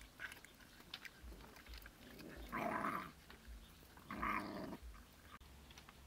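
Dogs eating chicken pieces and bones, with small crunching and chewing clicks throughout, and two short growls about two and a half and four seconds in.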